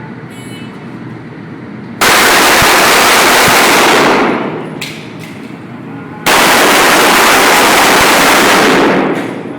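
Glock pistol firing on full auto in two long, very loud bursts of about two and three seconds, the shots running together into one continuous rattle. Each burst cuts in suddenly and dies away over about a second.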